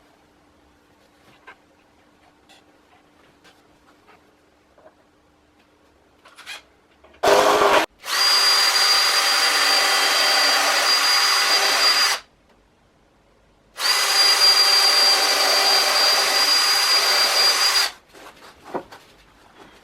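Power drill running in two steady bursts of about four seconds each with a steady high whine, after a brief blip of the trigger, working into the wood of the bench frame. Before it, a few light clicks of handling.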